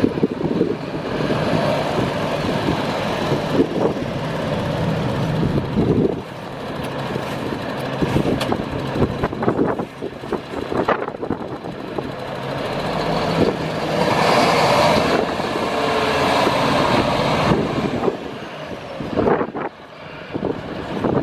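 MAN TGS 24.440 truck tractor's 12.4-litre diesel engine running as the truck is driven at low speed. The sound rises and falls with the throttle and grows louder for a few seconds about two-thirds of the way through.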